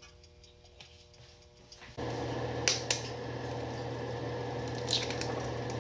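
A kitchen appliance motor switches on about two seconds in and runs steadily with a low hum, with a few sharp clicks over it.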